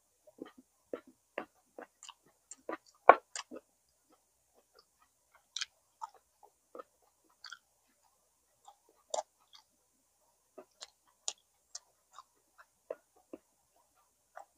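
Close-miked chewing of boiled pig's tail: irregular wet clicks and smacks from the mouth, the loudest about three seconds in.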